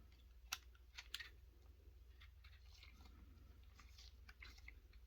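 Faint small clicks and light scrapes of the Browning 1911-22 pistol's metal parts being handled and fitted back together during reassembly, with two sharper clicks about half a second and a second in.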